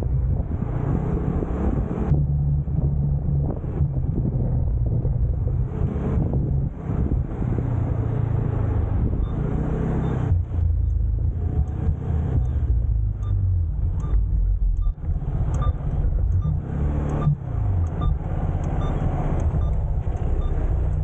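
Motor scooter engine running during a ride, its pitch rising and falling with the throttle under a low rumble, dropping as the scooter slows late on. From about halfway there is a faint regular beep about every two-thirds of a second.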